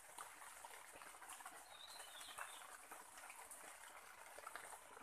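Near silence: faint forest ambience with scattered small clicks, and a brief high bird chirp about two seconds in.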